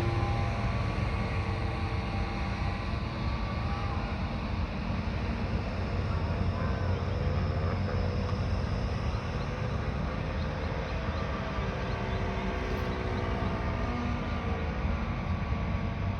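OS GT33 two-stroke gasoline engine of a Seagull Yak 54 radio-controlled aerobatic plane in flight, droning steadily. Its pitch rises and falls as the plane passes and changes throttle.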